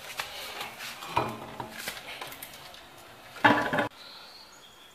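Metal clinks and knocks of a car wheel and its lug bolts being refitted to the hub, with one louder clank about three and a half seconds in.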